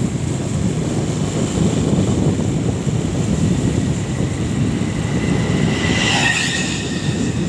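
Wind rushing over the microphone and road rumble from a vehicle in motion, steady throughout. About six seconds in, a brief higher-pitched hiss and whine, as an oncoming motorcycle passes.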